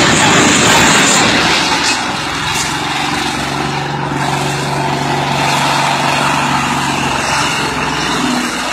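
Noisy clatter of rock and a heavy machine sliding down a rocky slope. From about two seconds in, a heavy machine's engine runs with a steady hum.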